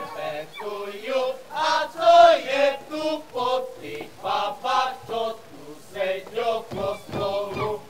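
A group of voices chanting a folk song unaccompanied, in short rhythmic phrases.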